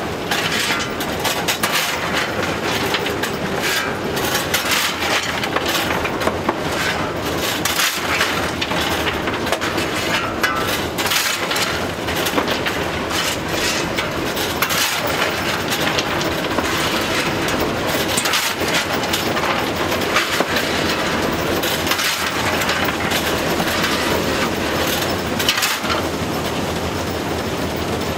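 Steam locomotive 423.0145 running, heard from inside its cab: a loud, steady mechanical rumble and clatter with many rapid knocks and rattles from the moving engine and wheels.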